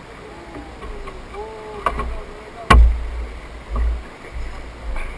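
Water lapping against the hull of a fibreglass bass boat, with uneven low rumbles. A sharp knock about halfway through is the loudest sound.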